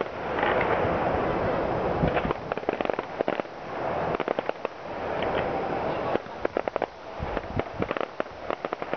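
Fireworks going off: dense runs of rapid crackling pops and bangs, coming in several clusters over a noisy rushing background.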